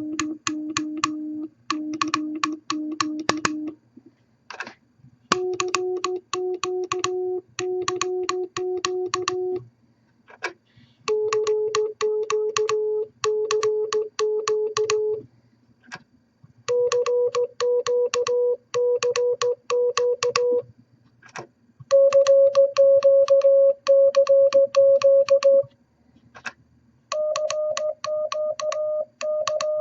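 Morse code sent as short on-off tones from a code practice oscillator, with a sharp click at the start of each element. The pitch steps up about every four seconds, six times, from a low tone near 300 Hz to about 600 Hz, as the unit's tone frequency is changed between groups.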